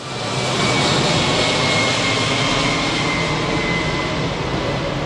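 Boeing 767-300 airliner's twin jet engines, a loud steady rush with a faint high whine that slowly falls in pitch, fading in over the first half second.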